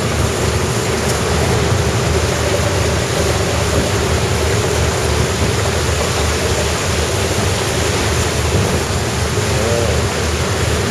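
Steady rushing and splashing of floodwater churned up by a train running along submerged tracks, over the train's low running rumble.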